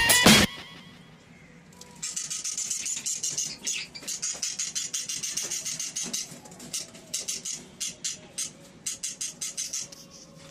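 Background guitar music stops half a second in; from about two seconds in, a group of small pet parrots chatters, a rapid run of high chirps.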